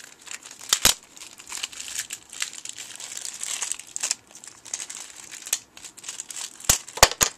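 Plastic packaging around a Nendoroid figure's display stand crinkling and rustling as it is handled and opened. Sharp plastic clicks come about a second in and three times near the end.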